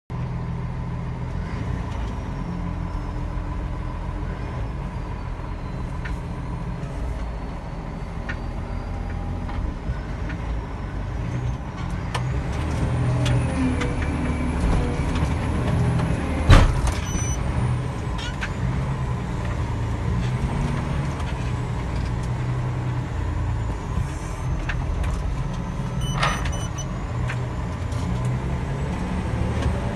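Wheel loader's diesel engine running, heard inside the cab, its note rising and falling as the machine drives and works. A single sharp knock about halfway through.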